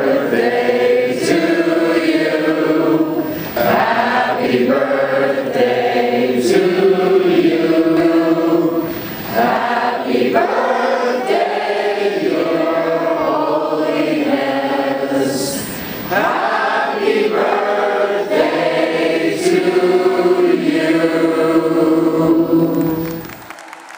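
A group of voices singing a song together in unison, which stops abruptly just before the end.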